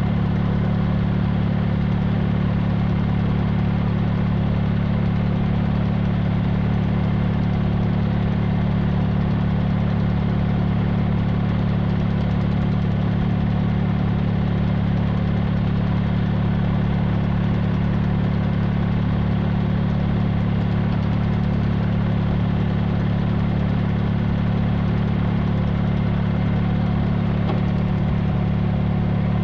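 Tractor engine running close by at a steady, unchanging speed, a constant low drone with no revving.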